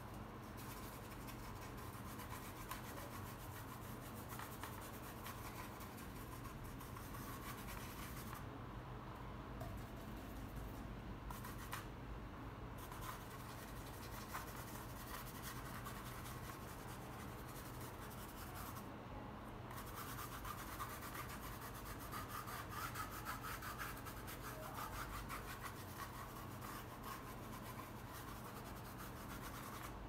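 Faint scratchy rubbing of a paintbrush scrubbing acrylic paint across a canvas in repeated strokes, pausing briefly a few times.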